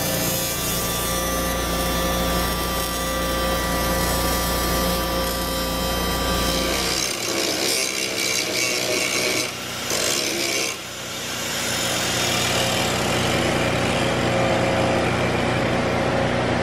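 An electric arc welder buzzes steadily as it lays a weld on the aluminium frame of an Audi R8. About seven seconds in, this gives way to an angle grinder with a sanding disc grinding the weld flat, lifted off the metal twice for a moment.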